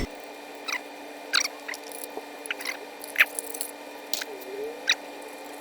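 Scattered light clicks and taps of small laptop parts and screws being handled during reassembly, about six short ticks at uneven intervals.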